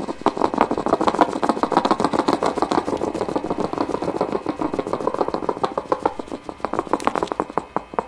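Short-beaked echidna rooting through dry leaf litter with its snout: a fast, steady run of crackles and snuffles, several a second, easing off near the end.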